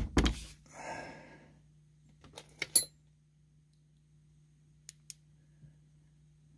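Clatter and clicks of small metal hand tools being handled, with a brief rubbing noise about a second in and a few sharp clicks near three seconds, then two faint ticks, over a low steady hum.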